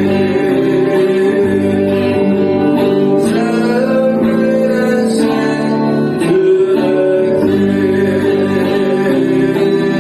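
A worship song: strummed acoustic guitar with singing.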